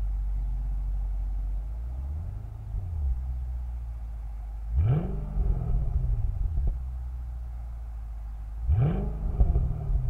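Exhaust of a 2006 Mercedes-Benz CLS55 AMG's supercharged 5.4-litre V8, heard at the tailpipes, droning steadily while cruising. The revs rise sharply and fall away twice, about four seconds apart, with a few sharp cracks as they drop.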